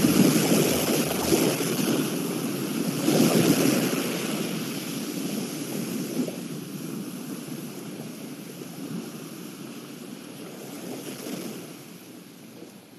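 Ocean waves washing in, two swells in the first few seconds, then slowly fading out.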